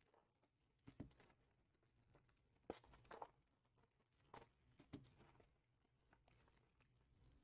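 Faint crinkling and rustling of trading-card box and pack packaging being handled, in a few short spells about one, three and five seconds in.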